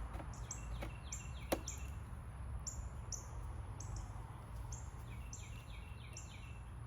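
Small birds chirping, short high falling notes in quick clusters, over a steady low background rumble; a single sharp click about a second and a half in.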